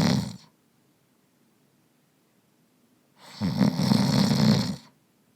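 A person snoring: a brief snore right at the start, then one longer snore lasting about a second and a half, around three seconds in.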